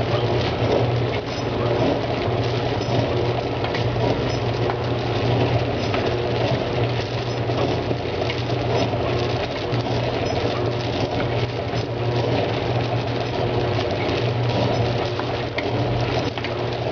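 Tecweigh industrial feeder running while it meters small gum pieces out of its hopper. A steady low machine hum sits under a dense, even rattle of the gum pieces.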